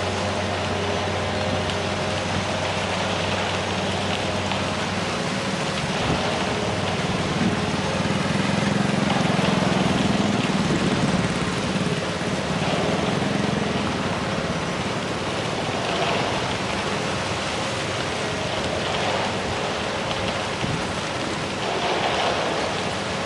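Heavy machinery engine running steadily under a dense rushing hiss. A low hum drops away about five seconds in, and the engine noise swells for a few seconds around the middle.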